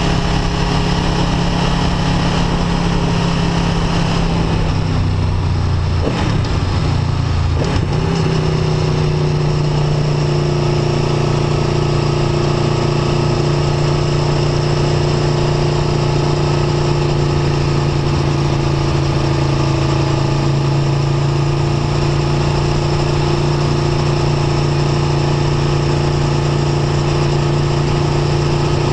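Aprilia Tuono V4 1100 RR's V4 engine running under way, heard from on the bike. The engine note shifts in pitch between about four and eight seconds in, then holds steady at a cruise.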